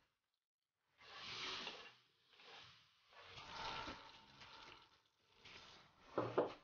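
Dark soy sauce bubbling and sizzling in a frying pan as it reduces, heard in several short bursts, with two sharp knocks near the end.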